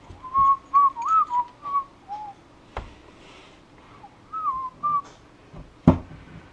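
A man whistling a short tune to himself in two brief phrases of gliding notes. There is a click about a third of the way in, and a sharp knock near the end that is the loudest sound.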